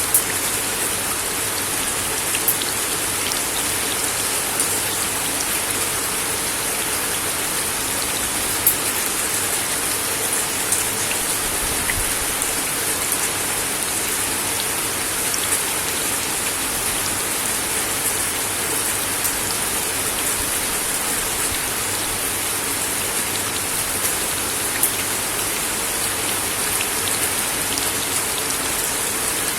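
Steady rain falling on a wooden deck, a constant hiss with occasional louder single drops ticking on the boards.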